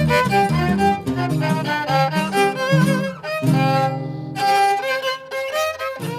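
Instrumental theme music: a bowed violin melody over lower held notes.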